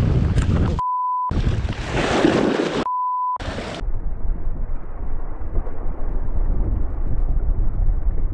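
Wind buffeting the microphone, cut twice by a steady one-tone censor bleep of about half a second each, the rest of the sound dropped out under each bleep. After about four seconds the sound turns dull and muffled, a steady low rush with no high end.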